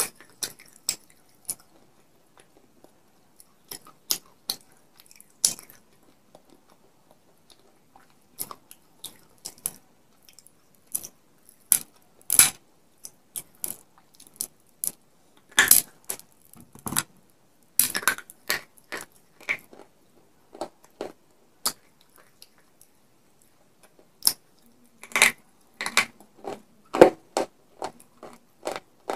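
Crunching and chewing of dry baked clay-pot pieces coated in white chalk paste, close to a clip-on microphone: irregular sharp crunches with quiet gaps between them, thickest around the middle and near the end.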